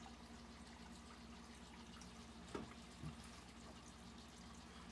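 Faint aquarium filter running: a steady low hum with a light trickle of water. Two soft taps come a little past halfway.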